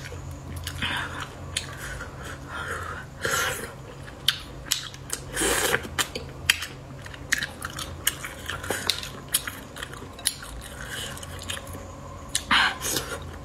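Eating snails: wet chewing and small clicks of shell and fingers, broken by a few short noisy sucks as the meat is drawn out of the shells.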